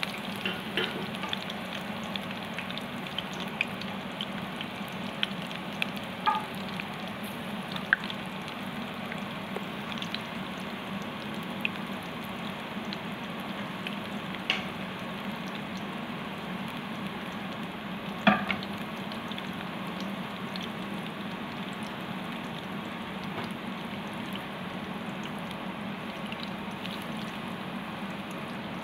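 Battered cauliflower florets deep-frying in hot oil: a steady sizzle with scattered sharp pops and crackles, the loudest about two-thirds of the way through.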